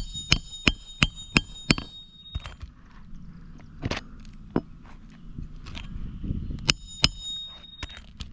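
Hammer driving roofing nails into asphalt shingles: a quick run of six strikes, about three a second, each with a short metallic ring. More scattered strikes follow, two close together near the end.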